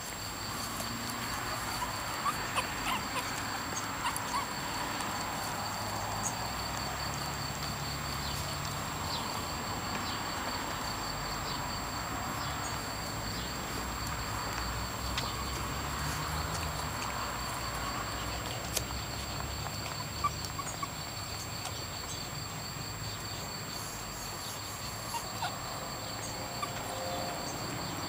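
Outdoor yard ambience: a steady high-pitched pulsing chirr, like insects, runs throughout over a faint background hum, with a few scattered faint ticks and rustles.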